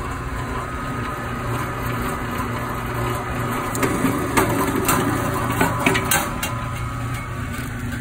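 BLUEROCK electric wire stripping machine running with a steady motor hum. About halfway through, a run of sharp crackles and clicks comes as a paper-taped flat copper strip feeds through its rollers and stripping blades.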